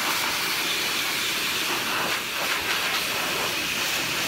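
Hose spray wand shooting a hard jet of water against prickly pear cactus pads: a steady hiss of spray that cuts off suddenly at the end.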